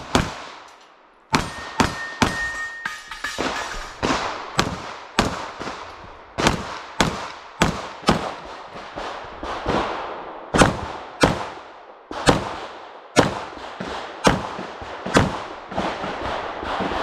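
A string of rapid semi-automatic handgun shots on a practical shooting stage, about two shots a second with short pauses between target arrays, each shot a sharp crack with a brief echo.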